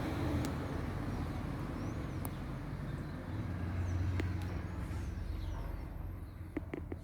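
Steady low rumble of road traffic, swelling about halfway through, with scattered short bird chirps above it and a few soft knocks near the end.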